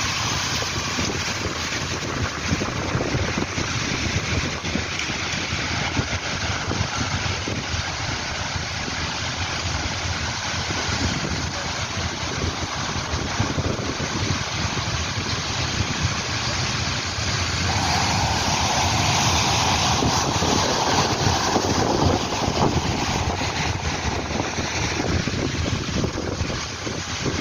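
Heavy storm swell surging and breaking along the shore, with wind buffeting the microphone: a steady rushing noise, a little louder for a few seconds past the middle.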